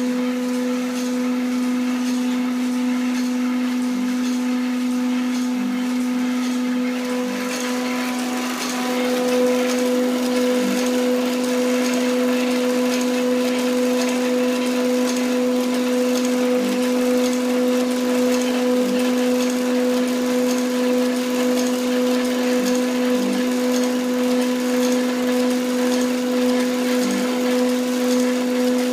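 A small electric motor running steadily with a pitched hum, getting louder about nine seconds in, with faint regular ticking.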